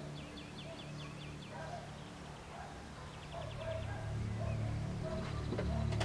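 Birds singing: twice a quick trill of high, evenly spaced notes, with softer lower calls between, over a low steady hum. Near the end come a few sharp knocks.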